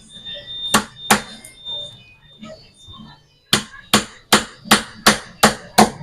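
Hammer blows on plywood: two strikes about a second in, then from about halfway through a steady run of strikes, a little under three a second.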